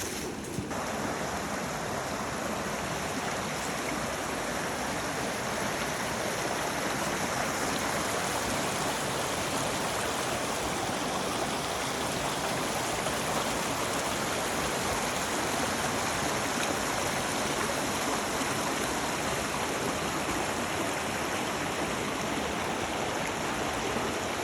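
Steady rushing of flowing water, as from a stream or small cascade: an even, unbroken roar.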